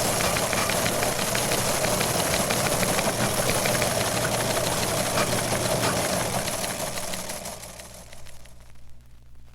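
A machine or engine running with a dense, fast rattle, fading out about seven seconds in and leaving faint record-surface crackle.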